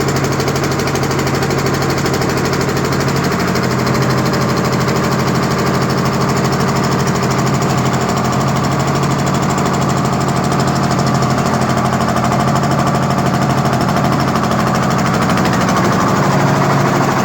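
Engine of a construction machine running steadily under load, with a fast, even knocking pulse. It gets a little louder about four seconds in.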